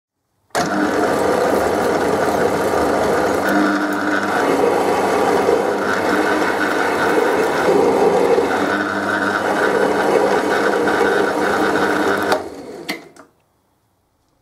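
Metal lathe running under power while screw-cutting the thread of a gear hob, a steady mechanical running sound with the cut. It starts suddenly about half a second in and stops suddenly about two seconds before the end, dying away within a second.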